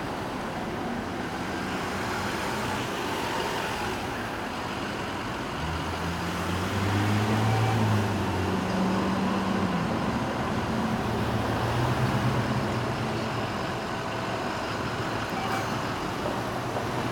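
Road traffic with a passing motor vehicle's low engine hum, which comes in about six seconds in and fades away over the next several seconds.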